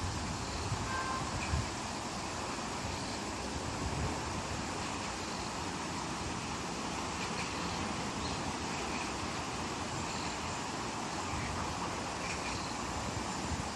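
Mountain wind blowing through trees, the leaves rustling in a steady, even hiss.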